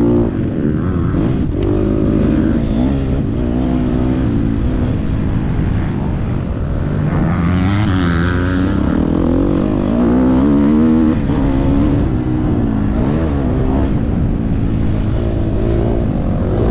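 Motocross bike engine heard from on board, revving up and dropping back again and again as the throttle opens and closes through the track's jumps and turns.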